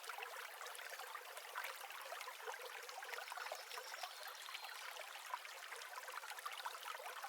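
Faint trickling stream water, a light, thin, continuous babble with small splashes.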